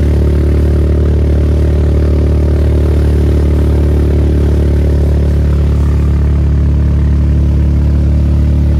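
UTV engine running steadily at speed, a constant low drone, with a broad rushing noise of travel over the lake ice.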